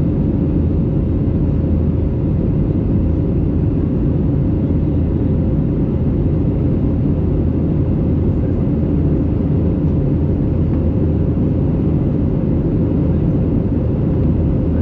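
Steady cabin noise of an Airbus A320neo in its climb, heard from a window seat beside the wing: a loud, even low rumble of the CFM LEAP-1A turbofans and the rushing air, with a faint steady hum running through it.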